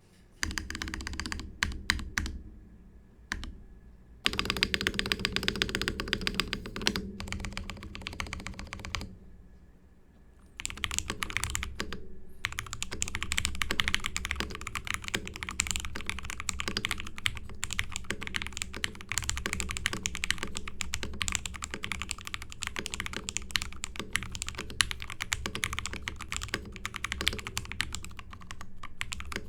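Typing on a mechanical keyboard in a Lapis60 acrylic gasket-mount case with lubed JWICK Ultimate Black switches and a tape (tempest) mod, which gives the keystrokes a denser sound. Short bursts of keystrokes with brief pauses for about the first ten seconds, then steady fast typing.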